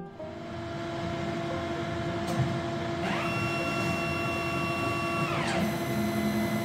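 Veterinary X-ray equipment running with a steady hum. About three seconds in, a motor whirs up in pitch, holds steady for about two seconds, then winds back down.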